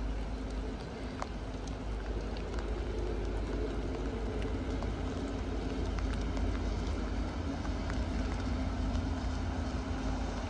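Distant diesel shunting locomotive running steadily as it moves slowly along the tracks, its engine a low, even hum under a strong low rumble.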